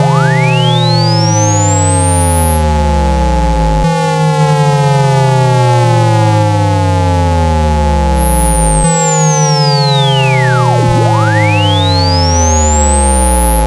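Synthetic speaker-cleaning test tones, loud: a pure tone that rises over about four seconds to a very high pitch, falls slowly back down, and rises again near the end, over two steady mid-pitched tones and a series of falling low tones. They are played through a phone speaker to vibrate water out of it.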